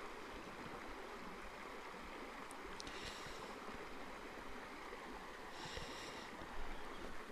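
Shallow creek running steadily over a rocky bed, with a couple of brief higher-pitched sounds about three and six seconds in.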